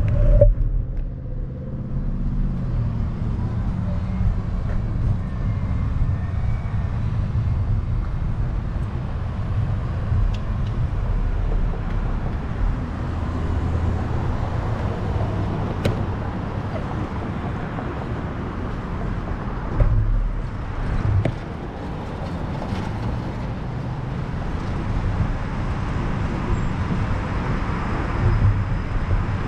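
Riding an electric scooter along a busy road: a steady low rumble of the ride, with car traffic passing alongside and swelling louder a couple of times.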